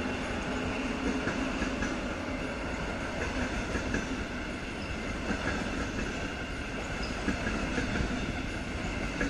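Red double-deck regional passenger train rolling past at moderate speed, a steady rumble of wheels on rail with occasional faint clicks.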